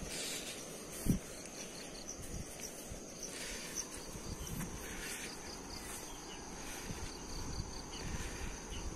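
Insects chirring steadily at a high pitch in dry grassland, over a low outdoor rumble, with one low thump about a second in.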